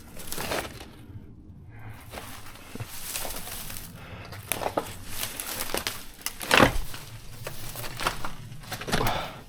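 Footsteps crunching and crackling through debris and dry undergrowth, in irregular steps with one louder crunch about two-thirds of the way through.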